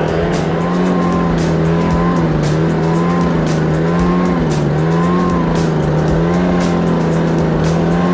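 Gas-powered backpack leaf blower engine running steadily, its pitch wavering slightly up and down, over background music with a quick steady beat.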